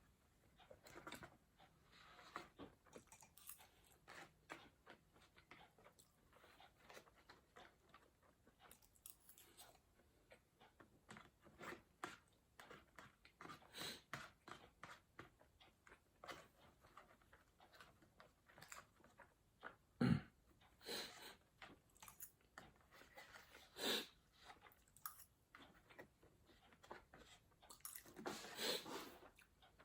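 Close-up eating sounds: soft chewing with many small mouth clicks, and a few louder bites or crunches, the loudest about two-thirds of the way through.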